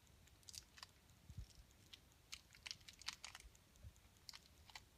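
Faint crinkling and crackling of a plastic blind-bag wrapper being handled, with scattered small clicks.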